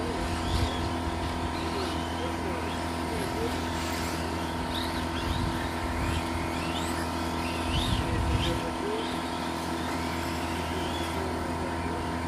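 Radio-controlled cars' electric motors running, with short whines that rise and fall in pitch over a steady hum, and a few low thumps, the loudest about eight seconds in.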